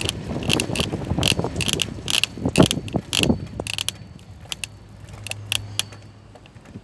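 Irregular mechanical clicking, several clicks a second and thinning out after about four seconds, with a steady low hum underneath.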